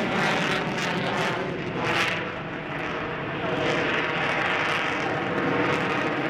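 Fixed-wing aircraft flying past, its engine noise a steady rush that dips slightly about two seconds in.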